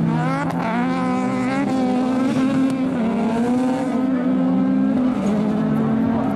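Rallycross car engines racing at full throttle. The engine note climbs repeatedly and drops back as the cars shift up through the gears, over a steady lower drone.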